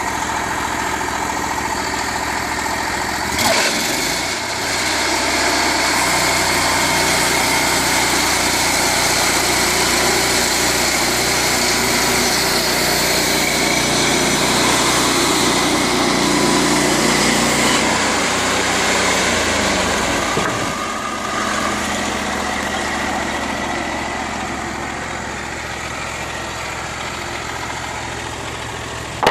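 Timbery M285 bandsaw sawmill running, its engine giving a steady drone. A single knock comes about three and a half seconds in, the sound grows louder from about five seconds, and it eases off after about twenty seconds.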